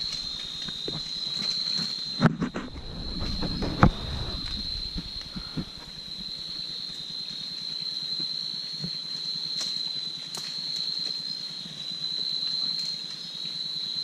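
Steady, high-pitched chorus of night insects, crickets, running throughout. In the first few seconds there is rustling in the branches and two sharp snaps about a second and a half apart.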